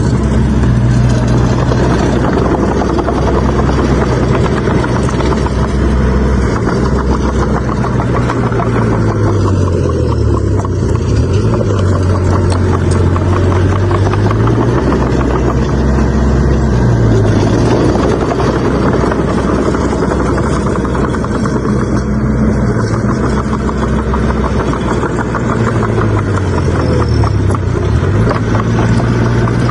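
Bulldozer's diesel engine running continuously. Its pitch dips and recovers several times as the engine lugs under load and picks up again.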